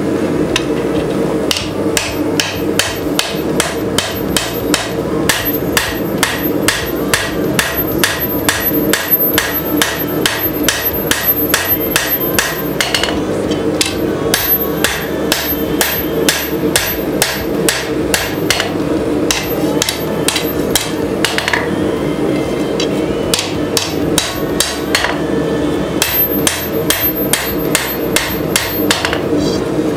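Hand-forging red-hot rebar steel with a hammer on a Cavalry anvil: a steady rhythm of sharp metal-on-metal hammer strikes, roughly three a second, broken by a few short pauses, over a steady low hum.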